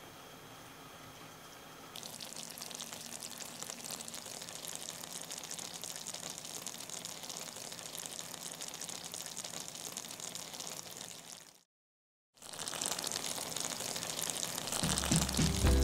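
Cheese dakgalbi sizzling in a frying pan as the cheese melts: an even crackling hiss that grows louder about two seconds in and cuts out for a moment about twelve seconds in. Music comes in near the end.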